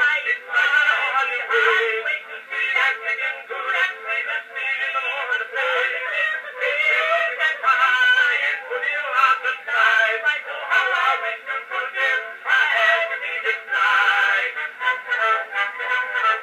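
Edison cylinder phonograph playing a black wax cylinder recording of a sung comic song through its horn, the sound thin, with no bass and little top end.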